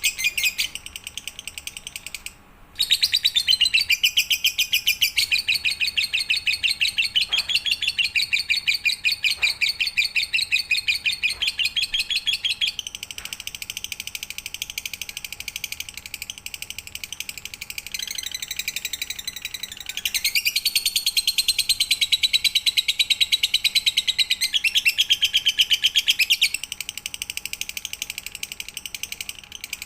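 Lovebird singing a long, rapid chattering trill. It breaks off briefly about two and a half seconds in, and louder stretches alternate with softer ones.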